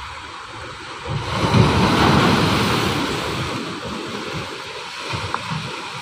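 Ocean surf breaking and washing up onto a sandy beach. The wash swells up sharply about a second in, then slowly eases off.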